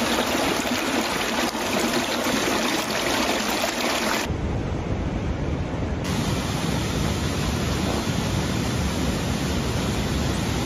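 Running water, a steady rushing of a small stream over rocks and of a swollen river, with no speech. The sound shifts abruptly twice, about four and six seconds in, as the water noise changes character.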